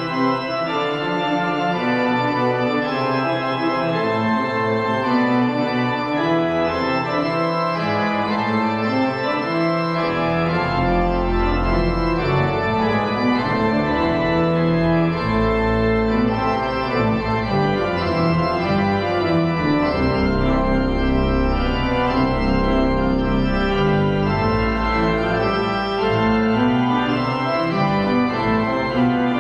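Church organ playing closing music in held chords, with deep bass pedal notes coming in about a third of the way through and carrying on.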